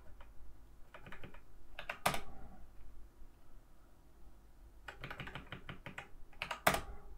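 Computer keyboard keys pressed in several short runs of clicks with pauses between, as text is edited: the cursor moved and line breaks typed in.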